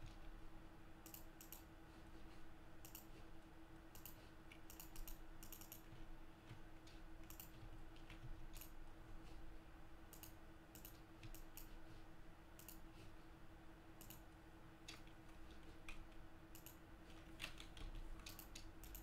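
Faint, irregular clicking of a computer keyboard and mouse, scattered keystrokes and clicks throughout, over a steady hum.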